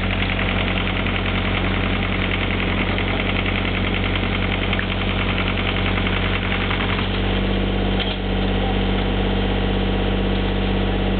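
Mini excavator's diesel engine running steadily close by; its note changes about seven seconds in.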